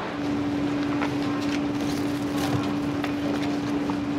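A machine's steady hum that starts just after the beginning, over a rushing noise, with a few light clicks.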